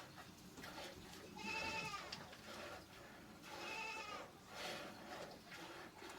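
Goats bleating: two wavering, quavering bleats, one about a second and a half in and another about four seconds in.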